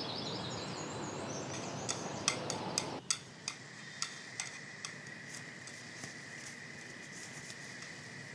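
Outdoor background noise with faint bird chirps, which drops away about three seconds in. Then chopsticks click sharply against a frying pan several times as pieces of meat are turned, with a faint steady high tone behind them.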